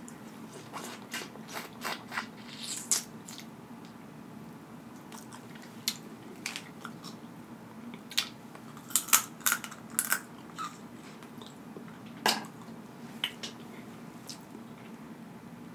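Close-up eating sounds of a person chewing and smacking on sauced crab meat, mixed with sharp clicks and crackles from crab legs being handled. They come in scattered clusters with quieter stretches between, the loudest about nine to ten seconds in.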